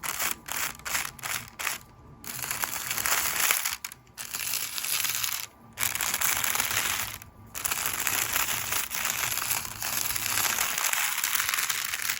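Makeup brush bristles sweeping over crinkle paper, a dense crackling rustle. It starts with several quick short strokes, then settles into longer sweeps broken by brief pauses.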